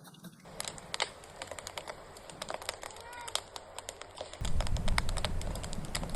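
Wood fire crackling with many sharp pops and snaps; about four seconds in a low rumble joins and the sound grows louder.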